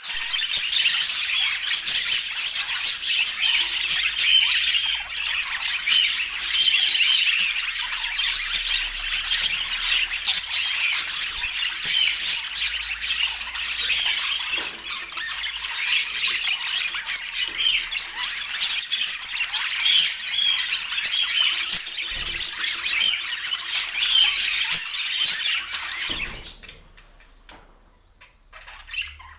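Budgies chattering and chirping nonstop in dense, high-pitched calls, falling quiet for a couple of seconds near the end.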